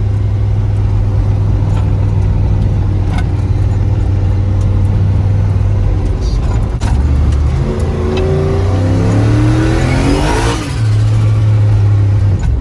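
Turbocharged LS V8 of a Chevrolet Silverado pickup through a 4-inch turbo exhaust, heard from inside the cab while driving: a steady low drone, then about eight seconds in the revs climb under acceleration with a rising turbo whine. The sound dips briefly near the end, then settles back to a steady drone.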